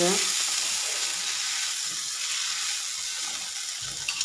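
Dosa frying on a hot tawa, a steady sizzling hiss. A brief low knock comes near the end.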